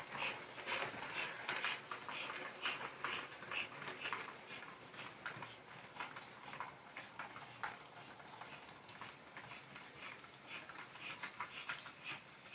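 American Flyer S-gauge model freight train running on its track, the wheels clicking over the rail joints at about three clicks a second, a little fainter after about five seconds.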